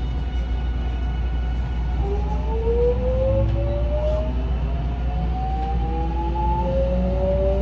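Mitsubishi power-transistor (PTr) VVVF inverter of an unrenewed JR West 207 series 0-bandai train, whining as the train accelerates: from about two seconds in, several tones climb steadily in pitch together over the low rumble of the motors and running gear.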